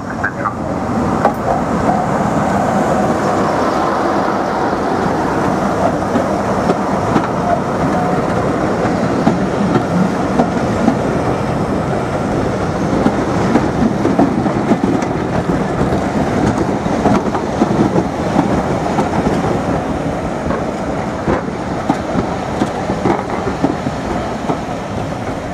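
Diesel-hauled passenger train running past a station platform: the locomotive's engine passes in the first seconds, then the coaches roll by with a steady rumble and clicking wheels over the rail joints.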